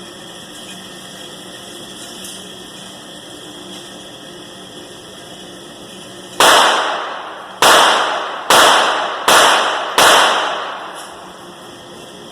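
Five gunshots from an ATI .223 semi-automatic pistol, fired about a second apart a little over halfway through, each echoing away.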